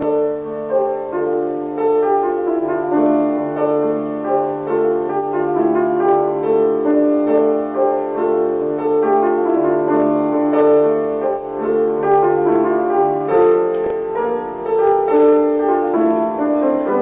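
Keyboard instrument playing a slow melody of evenly held notes over a sustained low bass note; the bass note changes about 13 seconds in.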